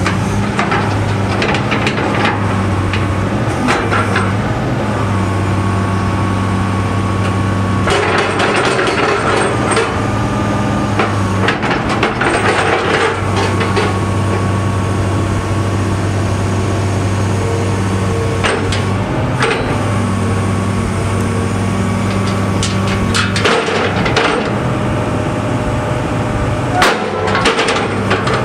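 John Deere 200C excavator's diesel engine running with a steady low hum while the boom is raised and swung and the grapple is opened, with sharp metallic clanks and knocks scattered through, several close together near the end.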